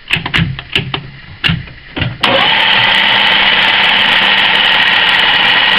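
A few clicks and knocks from the lathe's controls being handled, then about two seconds in a metalworking centre lathe starts abruptly and runs steadily with a mechanical whine, taking a light finishing cut on a small turned spigot.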